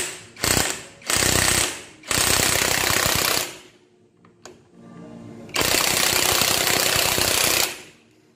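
Cordless impact wrench hammering on a motorcycle clutch hub nut, tightening it: two brief blips, a half-second burst, then a run of about a second and a half and a longer run of about two seconds.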